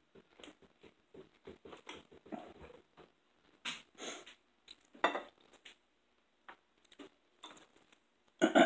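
Knife and fork clicking and scraping on china dinner plates as fried steak is cut and eaten, with a few short sniffs and chewing sounds. A short, loud vocal sound comes near the end.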